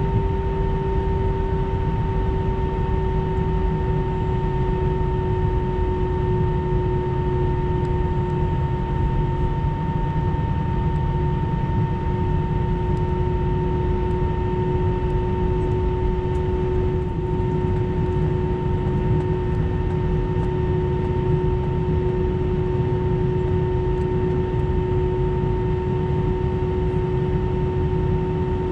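Airbus A319 cabin noise while taxiing: a steady low rumble from the engines at idle, with two steady humming tones, one low and one higher, over it.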